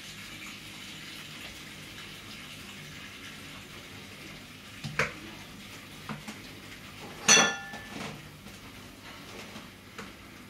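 Kitchenware being handled at a blender jug: light knocks about five and six seconds in, then a loud clink with a short ringing tail a little past seven seconds, and a couple of softer taps after it, over a faint steady hum.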